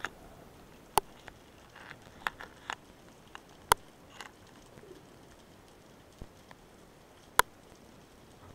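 Scattered sharp clicks heard underwater, single and irregular, over a low steady hiss. The loudest come about a second in, near the middle and near the end.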